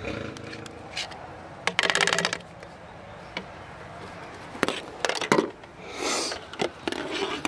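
Clicks and knocks of plastic oil-additive bottles and a funnel being handled, with a quick rattle of rapid clicks about two seconds in and a short hiss near the end.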